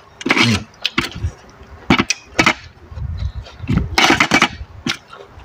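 A metal spoon and fork clinking and scraping against a stainless steel tray, a string of short sharp knocks while scooping rice noodles in curry sauce, with a few longer noisy mouth sounds of eating.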